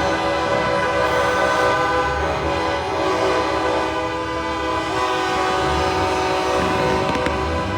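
Train horns mounted on semi-trucks sounding continuously, several horns overlapping in sustained chords whose notes shift as different horns join and drop out, over the low rumble of the trucks.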